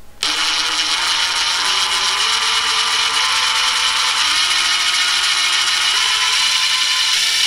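DeWalt DCF840 20V brushless 1/4-inch impact driver running free without load, starting suddenly, its motor whine rising in distinct steps as the trigger is squeezed further. The stepped rise is the sign of a stepped speed trigger, whose wiper contact moves across separate steps on the board, rather than an infinitely variable trigger.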